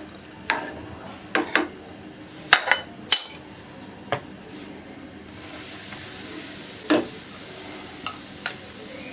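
A cooking spoon knocking and scraping against a frying pan in irregular strokes, with a few sharp clinks. From about five seconds in, a soft sizzling hiss sets in as flour fries in hot oil.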